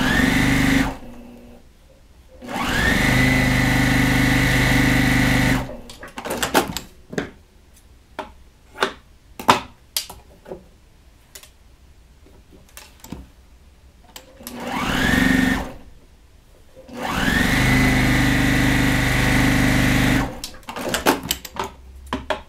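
Electric sewing machine stitching in separate runs, each starting with a rising whine as the motor comes up to speed; the two longest run steadily for about three seconds each. Between runs, small clicks and rustling of fabric being handled.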